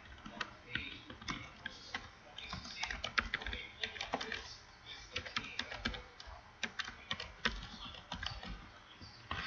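Typing on a computer keyboard: quick, irregular key clicks in runs with short pauses.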